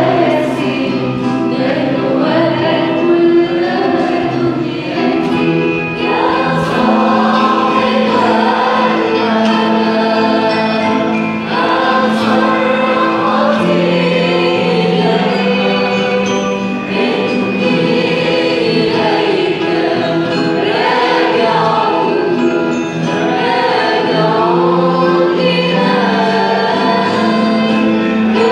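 A small group of voices singing an Arabic Christian hymn together, accompanied live by piano, guitars and drums, with steady held low notes under the melody. A few cymbal strikes stand out.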